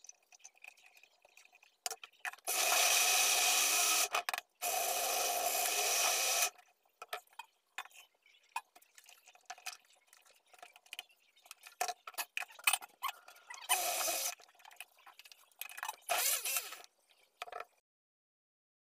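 Electric countertop blender running in two pulses of about two seconds each, with a short break between them, grinding chopped pepper and herbs into a paste. Scattered clicks and handling noises follow, and then two shorter bursts of noise.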